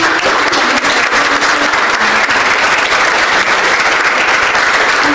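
Audience applauding, many hands clapping steadily and loudly.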